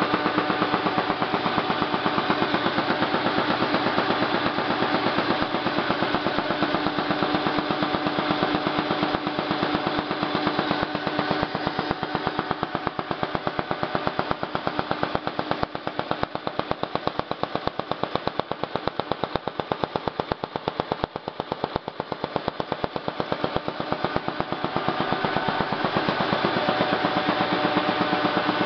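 Halm Super Jet two-color perfector envelope press running, a fast, even mechanical clatter as it cycles envelopes through, over a steady hum. The sound dips a little through the middle stretch and comes back up near the end.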